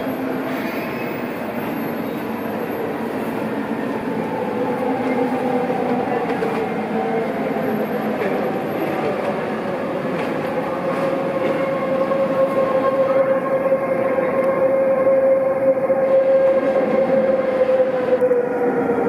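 Kelana Jaya Line LRT train's linear-induction-motor whine, a steady tone that grows louder as the train approaches and drops in pitch near the end as it slows into the platform.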